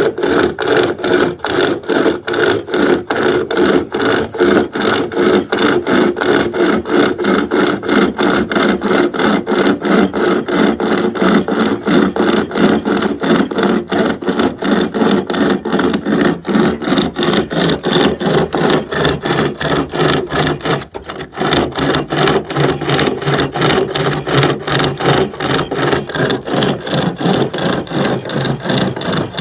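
SOG 36-inch pocket chainsaw, a hand-pulled chain with chainsaw cutters, sawing through a dried-out old 4x4 in fast, steady back-and-forth strokes. There is a short break in the strokes about two-thirds of the way through.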